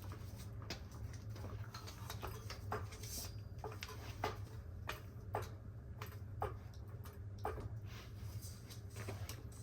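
A 2-ton car jack being set and worked under the jack point, with light clicks and knocks roughly once a second over a steady low hum.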